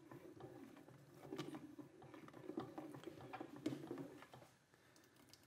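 A spoon stirring thickening leite creme (custard of milk, eggs and flour) in a stainless steel pot: faint scraping and small clicks against the pot's bottom, kept moving so the egg and flour don't stick. It dies away near the end.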